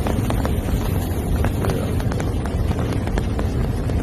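Flash-flood debris flow: a steady low rumble of rushing water and mud, with frequent sharp knocks of boulders striking one another as they are carried along.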